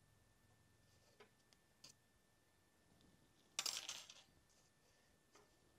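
Hand tube bender and 1/4-inch brake tubing being handled on a workbench: a few faint metal ticks, then about three and a half seconds in a short, sharp metallic clatter that dies away within half a second.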